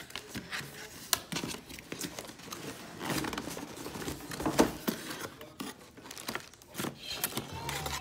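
Cardboard box and plastic packaging being handled: rustling and crinkling with scattered clicks and knocks.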